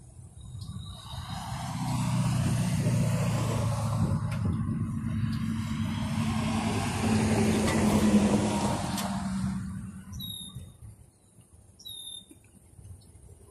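A road vehicle passes close by: its tyre and engine noise swells over several seconds, is loudest a little past the middle, then fades away. Two short, high chirps follow near the end.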